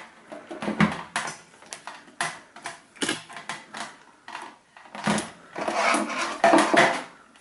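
Irregular clicks and light knocks of multimeter test leads, their plastic probes and a spark plug being handled and set down on a tabletop, with a stretch of rustling handling noise about five to seven seconds in.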